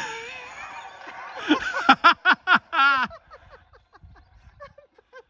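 A person laughing close by: a sharp knock at the start, then about a second and a half in a loud run of short "ha" sounds, each falling in pitch, the last one wavering, trailing off into softer giggles.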